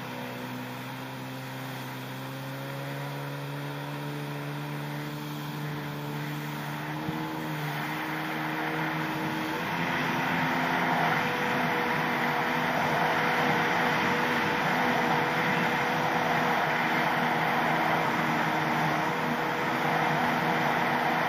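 Yamaha SuperJet stand-up jet ski's two-stroke engine running under way, its pitch climbing slowly, then changing about nine seconds in as the ski picks up speed. From then on a louder rush of water spray and wind covers the engine.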